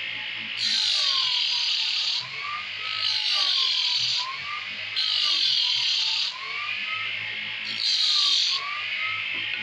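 Homemade disc sander driven by a 180-watt sewing machine motor, sanding a piece of wood: a harsh rasp each time the wood is pressed to the spinning sandpaper disc, repeating every second or two, with the motor's whine rising and falling in pitch between strokes.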